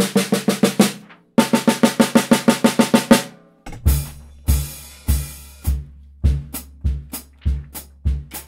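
Acoustic drum kit played with sticks: a run of fast, even strokes on the drums, a brief break about a second in, then another fast run until about three seconds in. After that it settles into a steady beat, with a bass drum hit about every 0.6 seconds and lighter drum strokes between.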